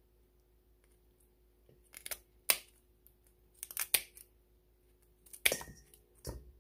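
Kitchen shears snipping through raw quail bone and flesh, splitting the bird: sharp crunching snips in several bursts, starting about two seconds in.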